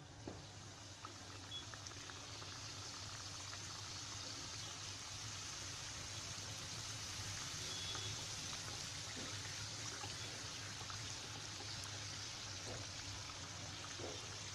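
Coconut karanji deep-frying in hot oil in a kadai on a low flame: a steady, even sizzling hiss of oil bubbling around the pastries.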